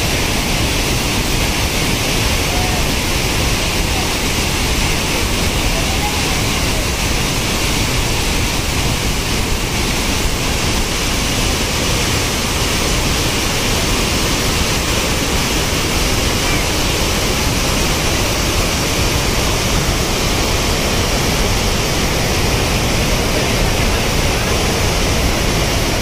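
Water of a small waterfall pouring over a dam's overflow: a loud, unbroken rush.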